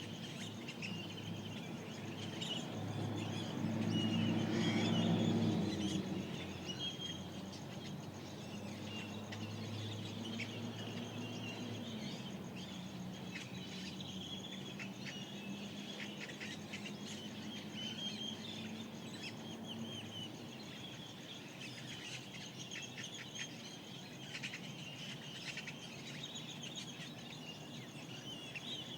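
Dawn chorus of desert birds: many short chirps and calls overlapping throughout. Under them a low droning hum swells about five seconds in and dies away by about twenty seconds.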